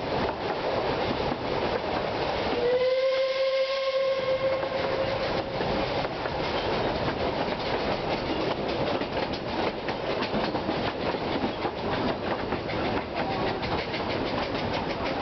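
Narrow-gauge steam train carriage rolling steadily with a clickety-clack of wheels over rail joints. A few seconds in, the steam locomotive's whistle sounds one long note, rising slightly as it starts and then holding for about three seconds.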